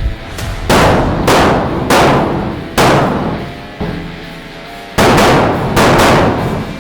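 A string of pistol shots, about seven sharp cracks, each dying away quickly. They come roughly a second apart at first, then pause for about two seconds before two more in quick succession.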